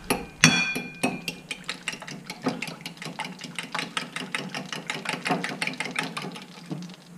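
Eggs being beaten by hand in a bowl, the utensil clinking rapidly against the bowl at several strikes a second, with one longer ringing clink near the start.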